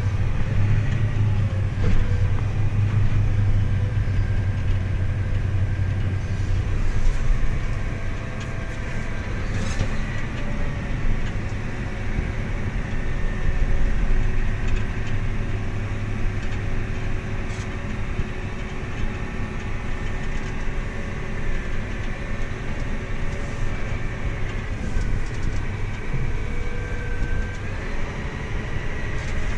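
Farm machinery engine running steadily under load, a continuous low rumble with a faint whine above it that wavers slightly in pitch.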